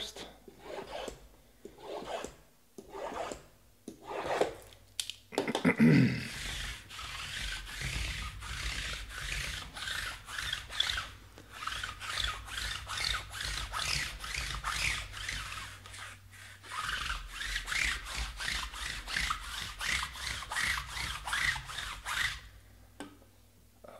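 Hands opening a 2018 Panini Contenders Optic Football hobby box, with wrapping and cardboard rubbing and crinkling. There are a few separate rustles at first, then quick continuous rubbing strokes from about six seconds in until shortly before the end.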